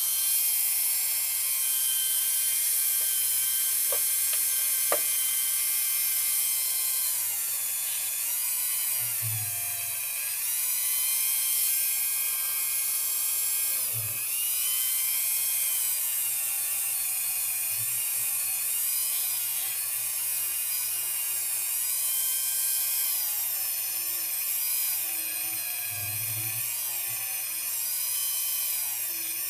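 Handheld rotary tool with a felt buffing wheel running at high speed, a steady high whine that bends down in pitch and recovers several times as the spinning wheel is worked into green polishing compound and against a slipjoint knife's bolster.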